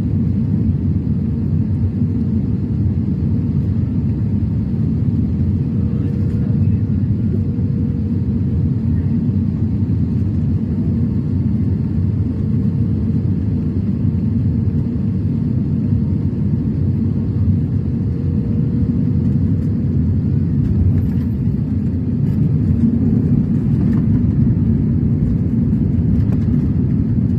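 Airliner cabin noise heard from a window seat over the wing: a steady low rumble through the final approach and touchdown, getting a little louder in the last few seconds as the jet rolls out on the runway with its ground spoilers raised.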